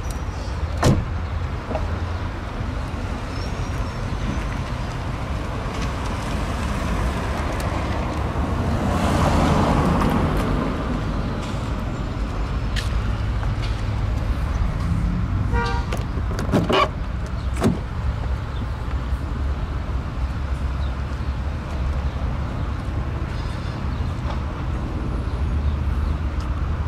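Outdoor traffic noise with a vehicle passing about nine seconds in, and a few sharp clicks and knocks from handling the car's doors, about a second in and again around sixteen to eighteen seconds in.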